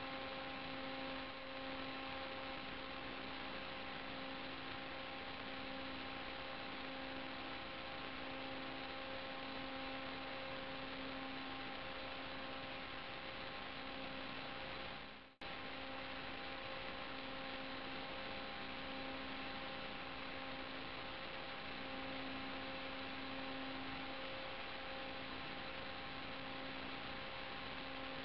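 Steady electrical hum and hiss on the audio of an FPV video-feed recording: a buzz of evenly spaced tones over a flat noise floor that does not change with the plane's motor load. It drops out briefly about halfway through.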